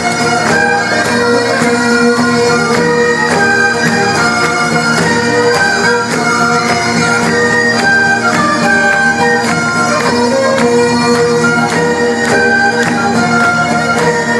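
Live traditional Irish music: bagpipes play a melody over a steady drone, with fiddles and a regular percussive beat underneath.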